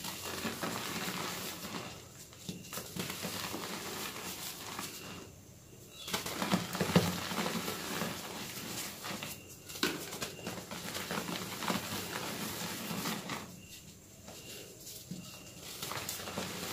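Hands squeezing and crumbling dry reformed gym chalk blocks into powder: a dense, dusty crunching and crackling in bouts of a few seconds, with short pauses between squeezes and one sharper crack about seven seconds in.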